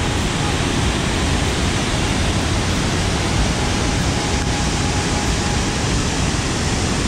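A waterfall on a river, white water pouring down through a narrow, potholed rock gorge, makes a steady, dense rushing.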